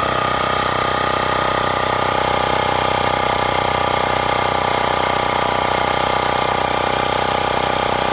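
WindGallop 12 V portable electric tyre inflator's compressor running steadily, pumping up a tyre from 2.2 bar toward a set 2.25 bar.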